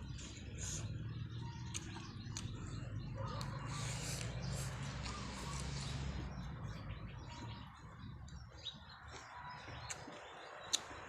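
Someone eating noodle soup, chewing and slurping, with a few sharp clicks of utensils on the bowl. Faint bird chirps sound a few times in the background.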